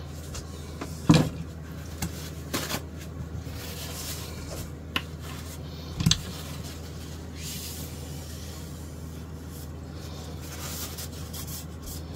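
Wooden guitar neck being handled and turned over on a workbench towel: a few sharp knocks, the loudest about a second in and about six seconds in, with soft rubbing and brushing between them.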